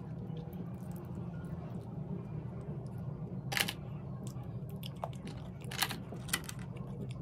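Sea snail shells clicking and clinking against one another as they are picked by hand from a pile: a run of small sharp clicks, the loudest about three and a half and six seconds in, over a steady low hum.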